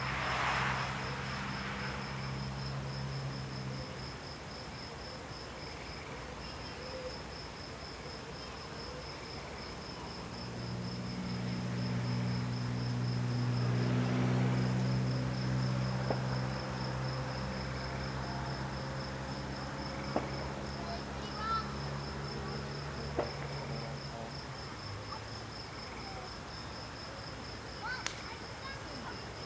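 Crickets chirping in an even, rapidly pulsing high trill. A low, steady droning hum swells up in the middle and fades away, and a few sharp clicks are heard toward the end.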